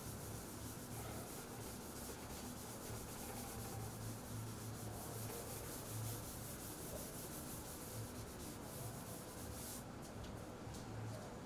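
A chalkboard being wiped with a cloth: a faint, steady rubbing swish that stops about ten seconds in.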